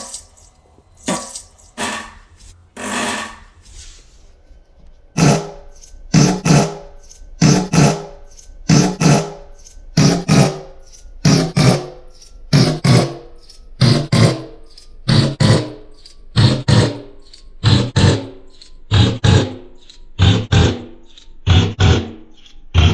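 Fart sound effect: short, low blasts repeating at a steady rhythm, often in pairs, about twice a second from around five seconds in, after a few scattered blasts at the start.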